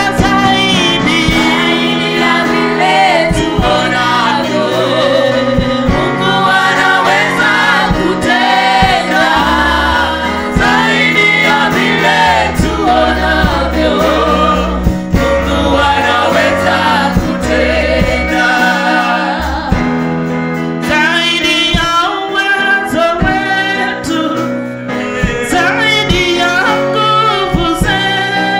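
Live gospel worship singing: a woman sings lead into a microphone with a praise team backing her, over band accompaniment with a bass line and a steady beat.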